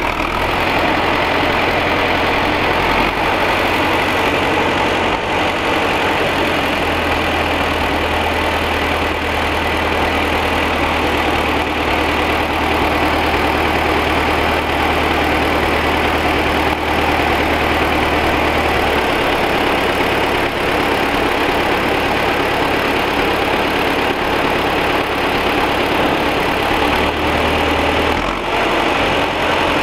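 T-40 tractor's diesel engine running steadily, its low note shifting a few times as the engine speed changes.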